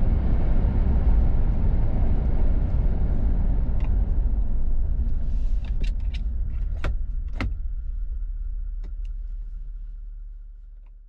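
Toyota LandCruiser 70 Series' 4.5-litre turbo-diesel V8 running steadily with a low rumble, no revving, with several sharp clicks in the middle. The sound gradually fades out near the end.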